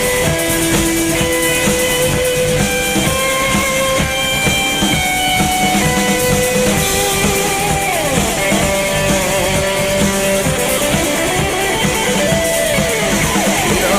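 Instrumental break of a rock song: a guitar plays a melodic lead line with sliding, bending notes over bass and a steady drum-kit beat.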